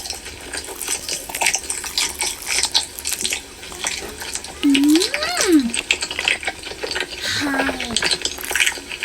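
A child making mock eating noises with the mouth: quick wet clicks and crackles throughout, with a vocal squeal that rises and then falls about five seconds in and a short hummed note a little before the end.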